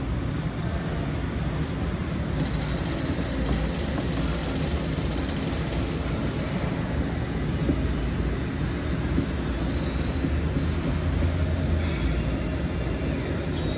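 Gym massage chair running: a steady mechanical whir with a low rumble underneath.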